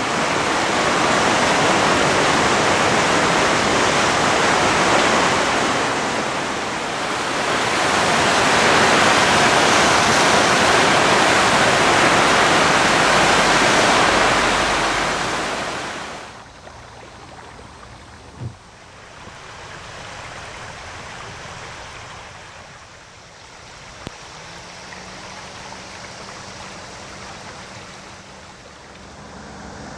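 Muddy floodwater of the swollen Abu River rushing past a bridge pier, a loud, steady churning rush of water. About sixteen seconds in it drops suddenly to a much quieter outdoor background, with a faint low hum near the end.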